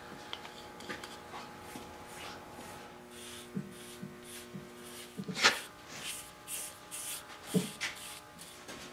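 Bristle brush swishing tung oil onto a bare wooden chair in a run of short, soft strokes from about halfway through, with two louder knocks among them.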